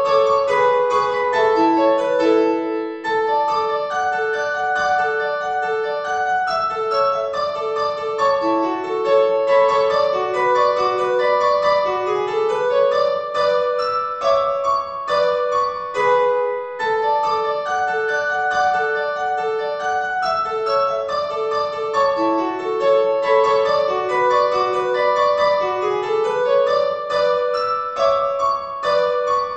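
Solo piano music: a light melody of short, separate notes in the middle register, played without pause. The same phrase returns about halfway through.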